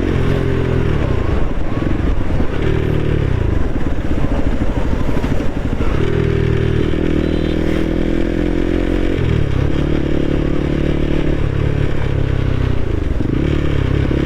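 Motorcycle with an aftermarket Akrapovic exhaust, dB killer fitted, being ridden: the exhaust note rises and falls several times with throttle and gear changes in the first half, then holds steadier with brief drops.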